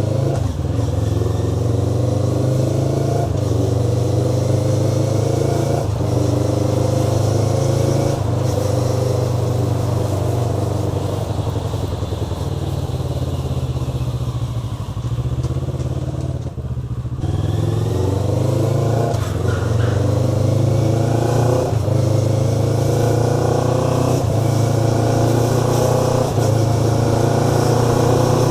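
Motorcycle engine accelerating through the gears. The pitch climbs for two or three seconds, drops at each shift and climbs again, many times over, with a brief easing off about two-thirds of the way through.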